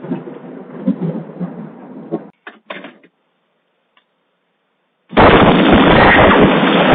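A close lightning strike: after a moment of quiet storm noise and a gap of dead silence, a sudden, extremely loud thunderclap overloads the doorbell camera's microphone and carries on as a distorted roar.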